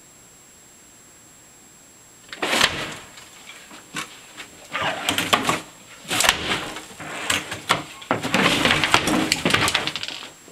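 Styrofoam packing peanuts rustling and a rolling drawer cabinet and office chair being shifted about, in several bursts of rustling and knocks from about two seconds in.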